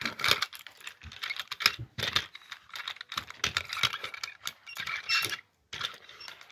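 Plastic toy train and toy car being pushed, rolled and knocked about on a paper notepad: an irregular run of clicks, clatters and scrapes with a few short pauses.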